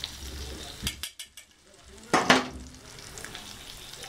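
Food frying in hot oil in a pan, with a steady sizzle. The sizzle cuts out briefly about a second in, with a few sharp clicks. Just past two seconds there is a short, loud burst, the loudest moment, before the sizzle settles back.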